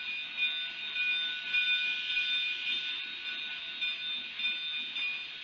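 Narrow-gauge K-27 steam locomotive 463 working slowly out of the yard: a steady steam hiss with several high, whining tones held over it and no distinct exhaust beat.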